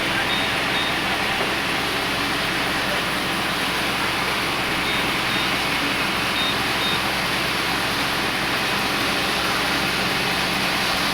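Wood-cutting power saw running steadily, a constant loud mechanical noise with no breaks.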